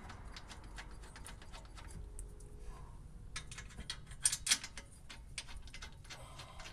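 Light, irregular metallic clicks and ticks as the four rear wheel bearing hub bolts are lined up and started by hand, with a brief flurry of louder ticks about three and a half to four and a half seconds in.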